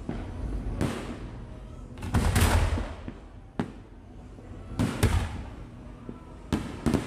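Fireworks going off in a series of about eight sharp bangs at irregular intervals, the biggest about two and a half seconds in.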